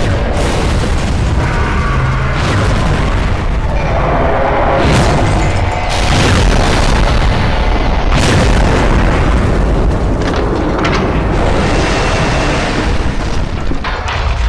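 A dense, loud, unbroken mix of edited-in sound effects, mostly booms and explosion-like rumble, with music mixed in.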